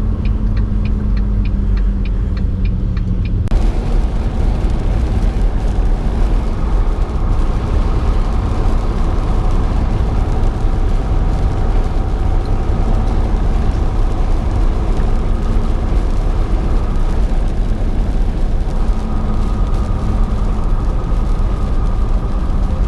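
Volvo semi truck driving at road speed: a steady drone of engine and tyre noise with a few humming tones. A light, regular ticking in the first few seconds gives way about three and a half seconds in to a sudden, steady rise in hiss.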